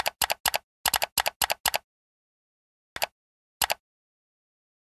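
Keyboard typing sound effect: about eight quick keystroke clicks in under two seconds, then two more separate clicks about three and three and a half seconds in.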